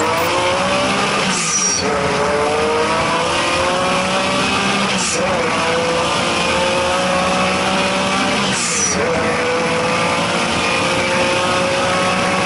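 Bisimoto's twin-turbo Porsche 911 with a water-cooled 3.4-litre M96 flat-six, heard from inside the cabin accelerating hard at full throttle. Engine pitch climbs steadily through each gear and drops briefly at three upshifts, with a short hiss at each shift.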